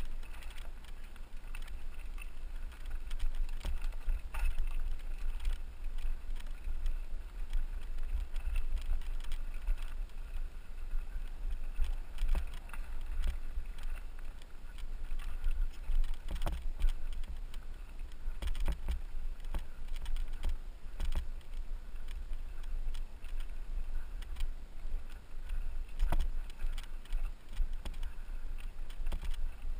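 Muffled low rumble and knocking from a body-mounted action camera moving along a rocky gravel trail, with irregular crunches and clicks from travel over the loose stones.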